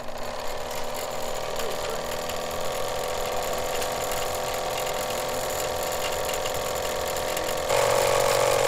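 Electric line-winding machine running steadily, spinning a reel spool to fill it with fishing line: a steady motor whine, louder about eight seconds in.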